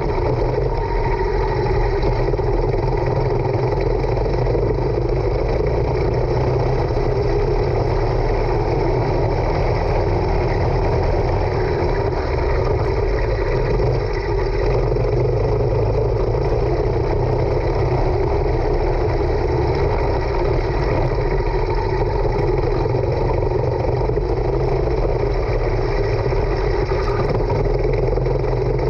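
Racing kart engine running loudly and steadily at racing speed, heard from a camera mounted on the kart itself.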